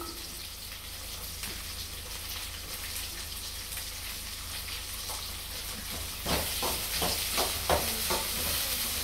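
Onions and green chillies frying in coconut oil in a pan, a steady sizzling hiss. From about six seconds in, a run of scraping clicks as the pan is stirred.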